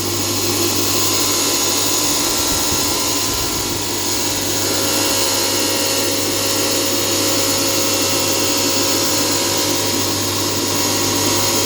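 Single-phase electric tile-cutting machine running steadily, its blade cutting a long ceramic tile wet, with a constant low motor hum under the cutting noise.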